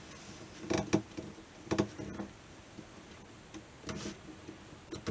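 A few light clicks and knocks, about one a second at uneven intervals, from hands working at a guitar clamped in a neck-removal jig.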